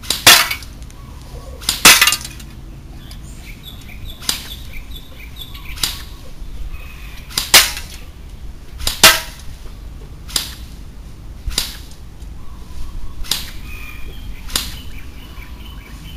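Electric JingGong MAC-10 toy gun firing single shots: about ten sharp cracks, one every second or two, the first two the loudest.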